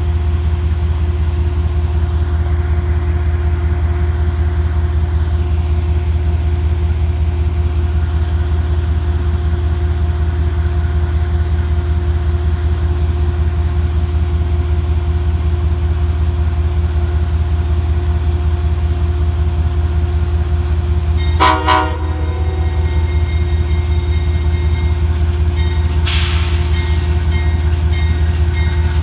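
Amtrak P32AC-DM diesel locomotive's engine running steadily with a deep drone. About two-thirds of the way through, the horn gives one short toot, and a few seconds later there is a brief hiss of air.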